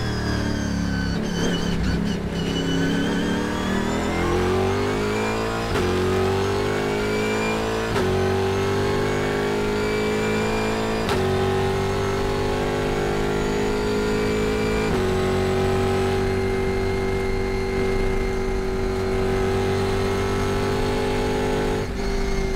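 Pratt & Miller Cadillac CTS-V.R race car's engine, heard from inside the cockpit, accelerating hard at full load. Its pitch climbs through a run of quick upshifts, the last about fifteen seconds in, then holds steady near top speed.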